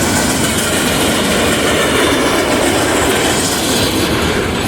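Empty freight cars of a garbage train rolling past at speed, about 46 mph, their steel wheels running over the rails in a loud, steady rush.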